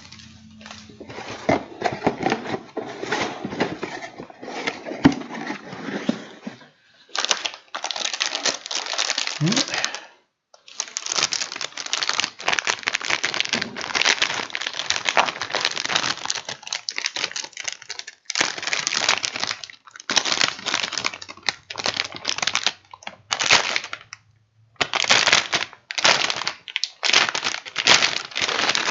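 Plastic packaging crinkling and rustling in irregular stretches as PC parts are unwrapped and handled, with short pauses between.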